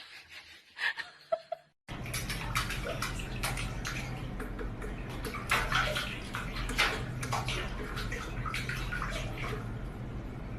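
Steady running and splashing water, as in a bathtub, starting about two seconds in after a few faint clicks.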